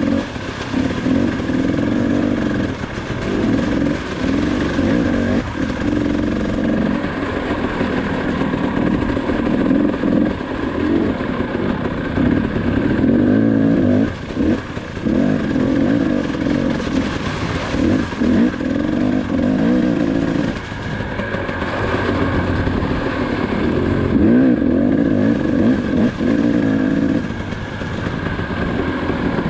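KTM 300 XC-W single-cylinder two-stroke enduro engine running under load, its revs rising and falling again and again as the throttle is opened and closed, with brief dips where it drops off.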